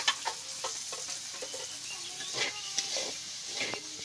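Sliced pointed gourd (potol) sizzling as it fries in a metal wok, with a flat metal spatula scraping and clinking against the pan as it is stirred every second or so.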